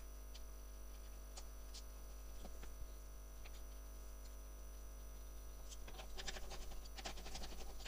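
Faint metal clicks and taps as bolts are fitted to a snow thrower's belt-tension adjustment mechanism: a few scattered clicks, then a quicker run of clicks over the last two seconds.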